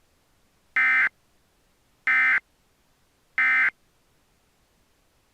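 Three short bursts of Emergency Alert System SAME digital data, the end-of-message code that closes an alert, evenly spaced about a second and a quarter apart.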